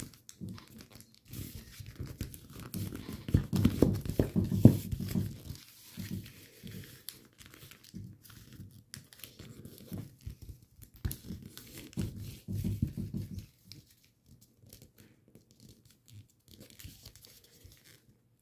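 A sheet of paper being folded and creased by hand: irregular rustling and crinkling with sharper crease strokes. It is busiest in the first third and goes much quieter about three-quarters of the way through.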